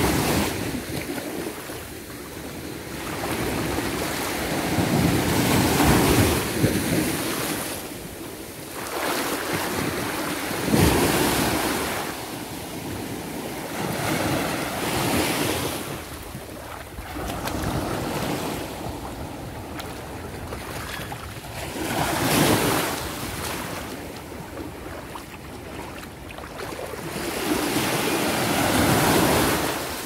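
Small waves breaking at the water's edge and washing up the sand, a fresh rush of surf swelling and fading every five seconds or so.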